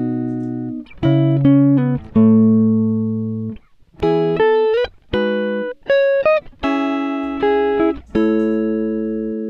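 Background music: a solo guitar playing ringing chords and single notes, each plucked note fading away, with a few notes sliding up in pitch.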